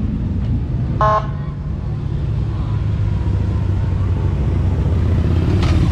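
Ford Mustang convertible's engine running with a low, steady rumble as the car drives slowly past, with a short car horn toot about a second in.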